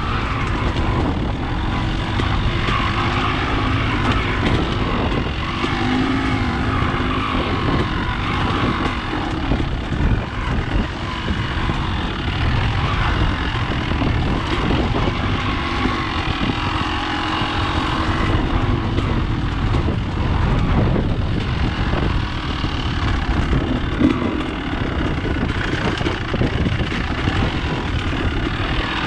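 Dirt bike engine running at low trail speed, its pitch rising and falling as the throttle is worked.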